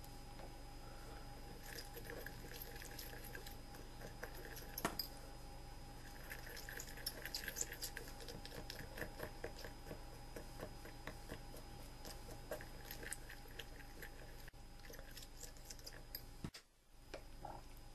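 Faint wet scraping and small clicks as a string is worked through a paste of crushed match heads in a ceramic egg cup, with one sharper click about five seconds in, over a steady low hum.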